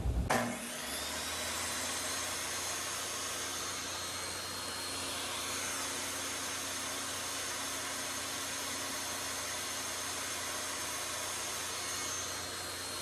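Table saw motor starting up just after a click near the start, its whine rising to speed within a second or two, then running steadily at a constant pitch.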